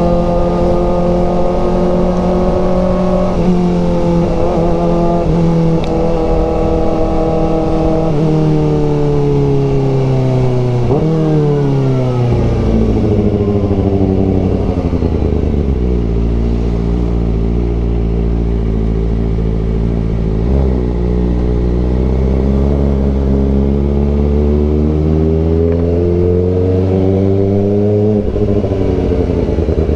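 Kawasaki Ninja ZX-4RR's inline-four engine under way, its revs falling in steps over the first dozen seconds as the bike slows and shifts down. It then runs at lower revs and climbs slowly, with a quick drop and rise again near the end.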